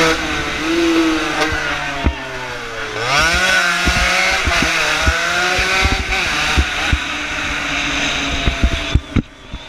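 A 115cc racing motorcycle's engine under hard throttle, its pitch dipping at each gear change and then climbing again, with wind buffeting the onboard microphone. About nine seconds in the throttle closes and the engine note falls away.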